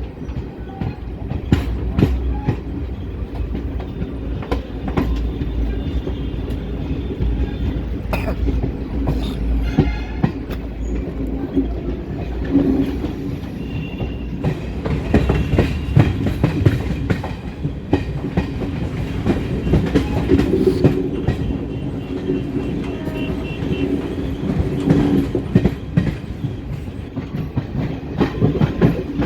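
Express passenger train running on the track: a steady rumble of wheels on rails with irregular clicks as the wheels pass over rail joints.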